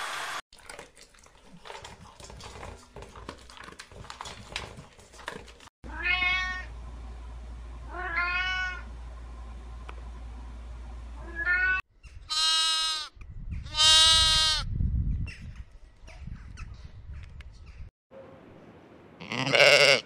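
Domestic cat meowing: five drawn-out meows that rise and fall in pitch, the last two loudest. They are preceded by a few seconds of soft crackling and clicks, and followed near the end by one loud sheep bleat.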